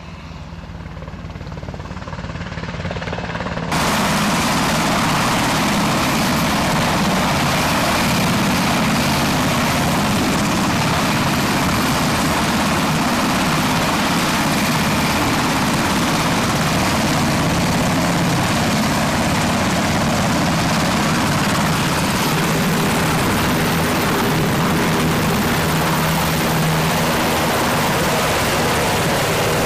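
UH-60 Black Hawk helicopter running close by: loud, steady aircraft noise with low steady tones and a faint high whine. It grows over the first few seconds, then jumps up suddenly about four seconds in.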